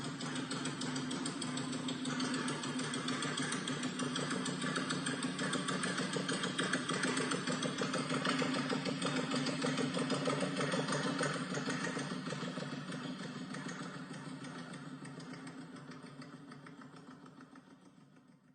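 Motorcycle engine running at a steady pitch, slowly growing louder and then fading out over the last several seconds.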